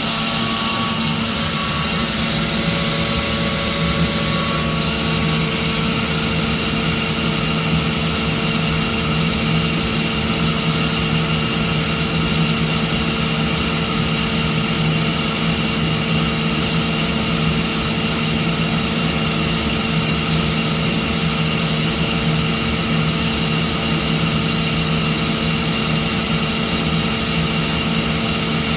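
Atlas Copco ZT22VSD oil-free air compressor with variable-speed drive running steadily: a loud, even hum with several high whining tones over it.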